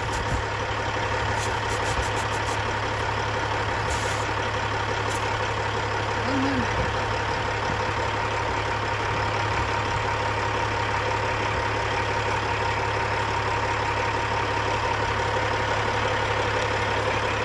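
Semi truck's diesel engine idling steadily, with a few short high hisses in the first five seconds.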